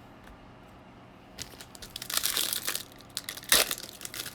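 Crinkling and tearing of a foil baseball-card pack wrapper as it is ripped open and handled, starting about a second and a half in, with a sharp snap near the end.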